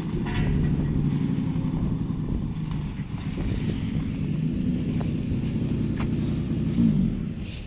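Sandrail buggy's engine running steadily, with a short rev that rises in pitch near the end.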